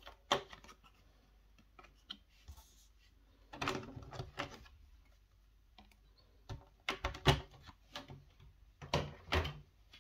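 Clear plastic packaging tray and trading cards being handled: short clicks and crackles of stiff plastic in a few brief clusters, the loudest a little past the middle.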